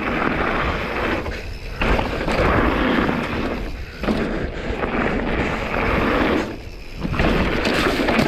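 Mountain bike riding fast down a rocky trail: a steady rush of tyre and wind noise on the microphone, easing off briefly three times.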